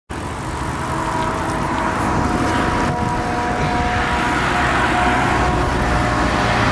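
Steady rushing noise from riding a bicycle beside a road: wind on the microphone mixed with road traffic, with a faint steady hum running through it.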